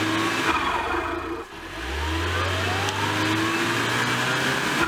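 Mitsubishi Pajero Mini's engine revving hard as it tries to drive out of a muddy bog rut, stuck and being pushed. One surge dies away about half a second in; a second rises in pitch after about two seconds and holds until near the end.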